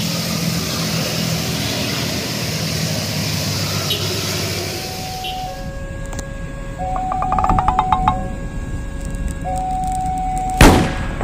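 Rain hissing on a wet street with motorbike engines passing. After a cut, a two-note train horn sounds in long blasts, with a quick run of clicks between them, and a loud bang near the end.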